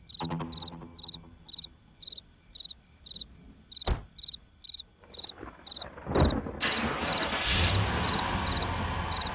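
Crickets chirping steadily, about two chirps a second. There is a sharp click near four seconds in, then a thump a little after six seconds. After that a steady rushing noise with a low hum sets in under the chirps.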